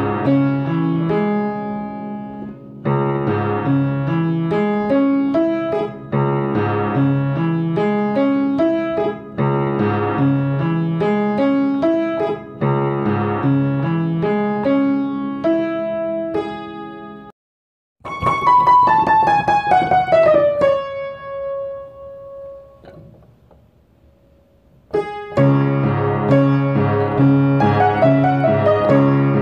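Solo piano music: a repeating broken-chord figure in the bass under a melody. It cuts off abruptly about 17 seconds in, a falling run of high notes settles on one held note that fades away, and the figure starts again about 25 seconds in.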